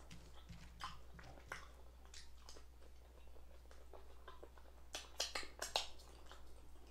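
Close-up mouth sounds of someone chewing a mouthful of fries: soft, wet clicks and smacks, with a short cluster of louder smacks about five seconds in.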